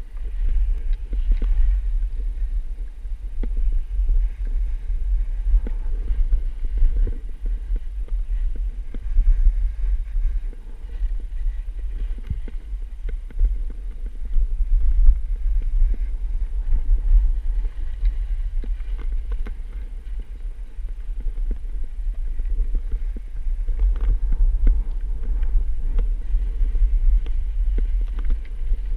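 Wind buffeting the microphone of a camera carried by a skier moving downhill: a steady low rumble, with skis scraping and chattering over packed snow.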